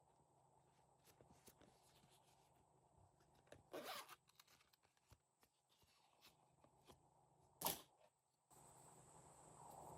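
Faint handling noises of slime being worked by hand: scattered small sticky clicks, with a brief louder burst about 4 s in and a sharp short one near 8 s.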